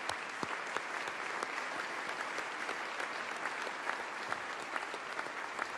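Large audience giving a standing ovation, many hands clapping steadily in a big, echoing hall.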